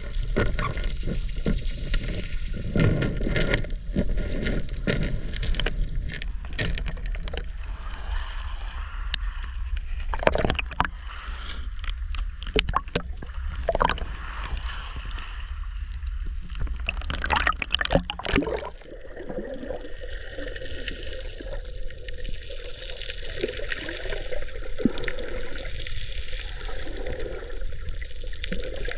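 Sea water sloshing and gurgling, with many scattered sharp clicks and pops. The sound changes abruptly about two-thirds of the way in.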